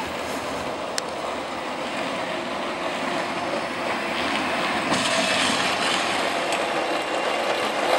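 Power Wheels ride-on toy cars, a Porsche GT3 converted to 18 volts and a Dune Racer, driving on asphalt: a steady rolling and whirring of plastic wheels and small electric drive motors that grows louder as they approach. There is a single sharp click about a second in.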